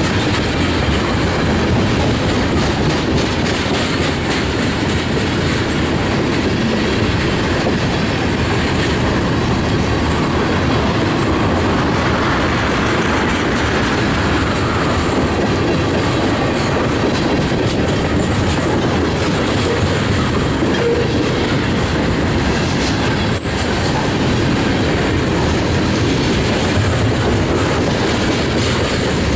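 Steady loud rumble of a freight train's tank cars rolling past close by, their steel wheels clattering over the rail joints.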